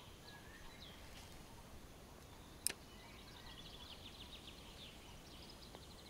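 Faint songbirds chirping, with a run of quick trills in the second half, and a single sharp click a little before halfway.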